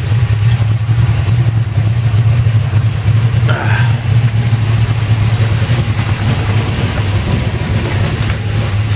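Chevy 360 small-block V8 running steadily. The engine has an intermittent dragging noise that the owner can't trace and thinks is at the flex plate or torque converter.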